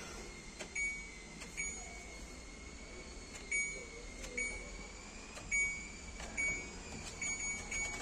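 Control panel of an IFB Senator Aqua SX front-loading washing machine beeping as its program dial is clicked round step by step: about eight short high beeps, each with a click, roughly one a second, over a faint steady high tone. The technician judges the machine's control circuit board broken.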